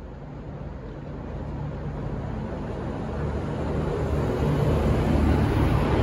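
V/Line diesel train approaching: a steady low engine drone with rolling noise that grows steadily louder.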